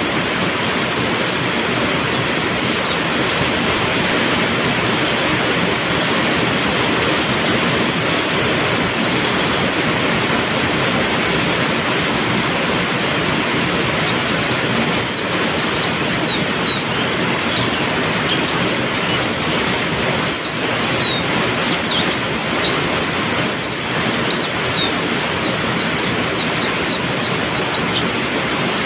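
Heavy rain pouring steadily, with a white-eye (pleci) twittering over it in quick high chirps, a few at first and almost continuous from about halfway through.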